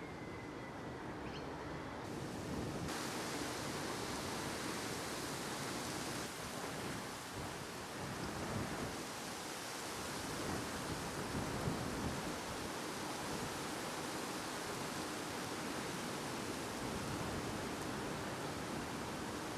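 Wind on the microphone: a steady rushing noise with irregular low rumbling buffets.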